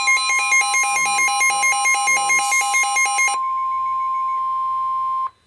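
Weather-radio warning alarm: a loud steady tone with a fast pulsing beep over it for the first three and a half seconds, then the steady tone alone, cutting off suddenly about five seconds in. The alarm signals a severe thunderstorm warning broadcast.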